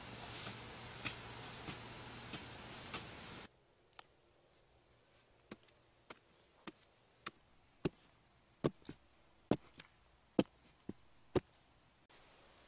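A wooden stick jabbing and scraping into hard, dry earth, giving a series of sharp knocks roughly twice a second. A soft outdoor background cuts off a few seconds in, leaving the knocks on near-quiet, and they get louder toward the end.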